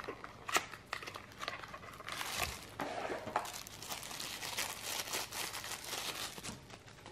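A few clicks and scrapes as a small knife box is opened, then a clear plastic bag crinkling steadily for several seconds as a folding knife is worked out of it.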